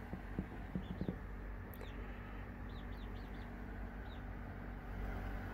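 Baby chicks peeping: short, high peeps that drop in pitch, a few scattered through and a quick run of four about three seconds in. A few soft taps in the first second.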